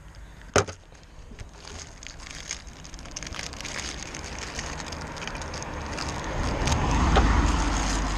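A sharp plastic snap about half a second in as the Ford Fiesta's clip-in side indicator lens is levered out of the front wing with a pry bar, followed by light plastic clicks and rattles from handling the loose lens and bulb holder. A rising rush with a low rumble swells to its loudest near the end.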